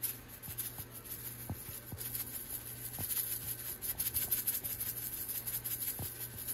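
Seasoning shaken from a spice shaker over raw chicken in a glass bowl: a dry, hissing patter of many quick shakes, with a few soft knocks.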